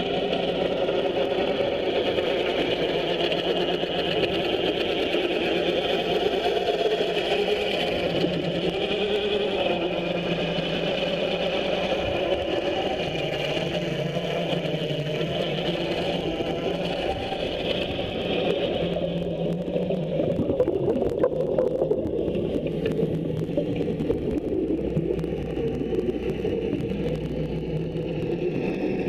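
Underwater propeller-polishing tool running steadily against a propeller blade: a continuous mechanical drone carried through the water. About two-thirds of the way through, its higher whine drops away and the sound turns rougher.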